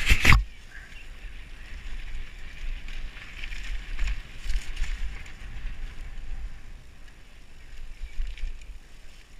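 Mountain bike descending a dirt trail, heard from a helmet-mounted microphone: wind buffets the microphone and the tyres and frame rattle over the ground, with a sharp, loud clatter right at the start.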